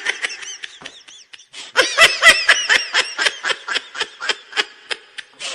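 High-pitched laughter sound effect: a quick run of short, rhythmic laughing pulses, louder from about two seconds in.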